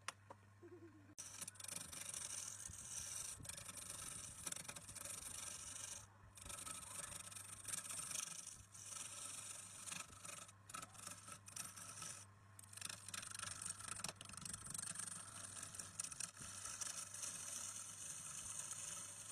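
A tool scraping and rubbing on wood in continuous, irregular strokes, with brief breaks about six and twelve seconds in, over a steady low hum.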